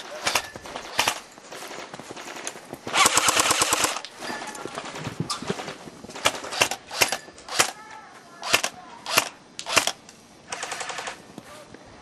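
Airsoft rifles firing: scattered single shots, a rapid full-auto burst lasting about a second near three seconds in, and a shorter burst near the end.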